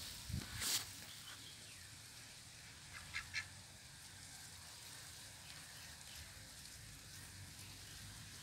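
Muscovy ducks giving a few short, soft calls about three seconds in. Near the start there is a brief louder rustle.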